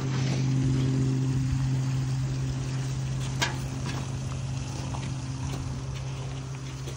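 Hot scald water being dumped out of a large aluminium stockpot and splashing onto gravel, loudest at first and thinning out as the pot empties. A steady low motor hum runs underneath throughout.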